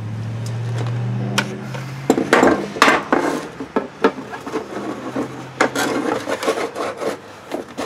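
3D-printed plastic drawer being slid back and forth in its plastic rails, with irregular scraping and knocks, loudest about three seconds in. It is being worked in so that the tight drawer runs smoothly. A low hum sounds under the first two seconds.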